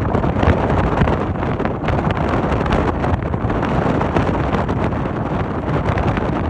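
Wind buffeting the microphone aboard a passenger ferry: a loud, steady rush with constant small flutters and no clear engine note.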